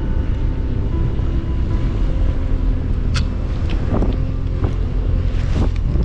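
Wind buffeting the camera microphone as a steady low rumble, with a few light clicks from the spinning reel being handled.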